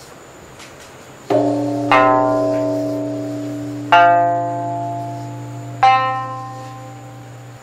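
Sanshin with a yushigi-wood neck plucked four times, each note ringing out and fading slowly, over a low steady hum from a temple bell's lingering resonance.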